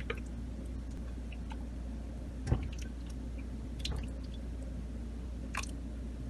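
Thick chicken vegetable soup being ladled into a serving bowl: wet sloshing and dripping with a few knocks of the ladle against the pot or bowl, the loudest about two and a half seconds in, over a low steady hum.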